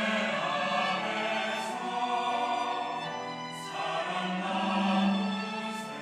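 Church choir singing in long held notes. A new phrase begins about four seconds in and swells louder just after.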